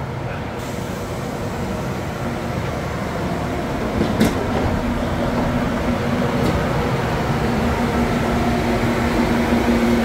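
Standing passenger train idling at a station platform: a steady mechanical rumble with a hum that grows stronger about four seconds in. A sharp click comes just after that, and a fainter one a couple of seconds later.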